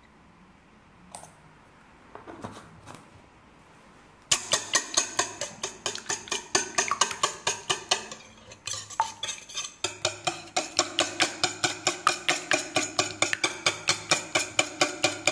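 A wire balloon whisk beating eggs and milk in a stainless steel bowl. Starting about four seconds in, the wires click against the bowl in quick, regular strokes, about three or four a second, with a short pause near the middle.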